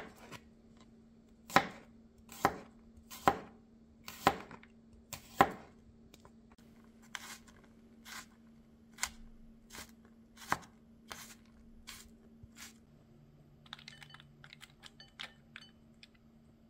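Chef's knife chopping garlic on a cutting board: sharp knocks of the blade striking the board about once a second, loudest over the first six seconds, then lighter taps. Near the end comes a quick run of small clicks.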